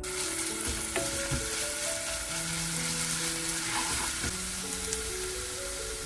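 Minced garlic sizzling hard in hot olive oil in a nonstick frying pan, stirred with a wooden spatula, with a few light knocks of the spatula against the pan.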